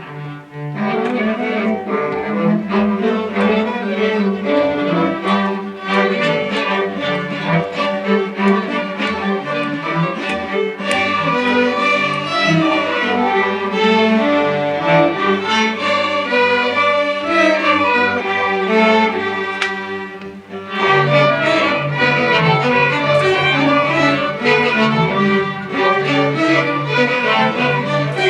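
A high school string orchestra playing, with violins and cellos sounding together in sustained bowed notes. The ensemble thins briefly around twenty seconds in, then comes back in loudly about a second later.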